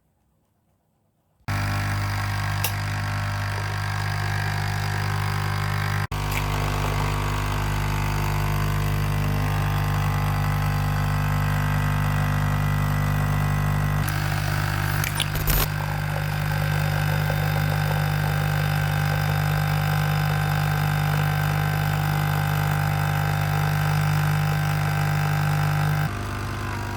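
Nescafé Dolce Gusto capsule coffee machine by Krups pumping water through a coffee capsule: its vibration pump starts about a second and a half in with a steady, loud low hum and runs on, easing slightly near the end.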